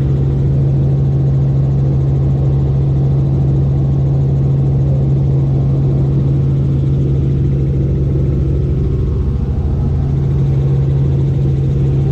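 Small helicopter in flight heard from inside the cabin: a loud, steady drone of engine and rotor with a fast low beat from the rotor blades.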